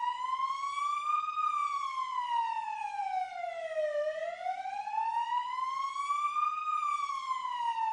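A siren wailing, its pitch gliding slowly up and down, each rise or fall taking about two and a half seconds.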